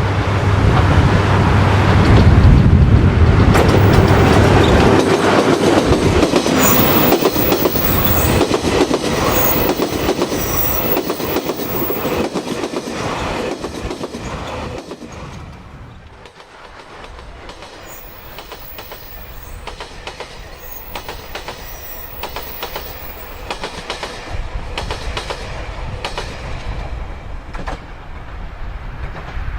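The Seven Stars in Kyushu cruise train passing close by, wheels clacking over the rail joints with a high-pitched squeal at times. It is loud for about the first fifteen seconds, then fades as it moves away.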